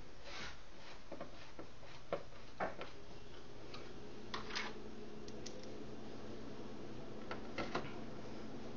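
Scattered light clicks and taps of small parts being handled on a synthesizer's circuit board during reassembly, a few at a time with gaps between, over a steady low hum.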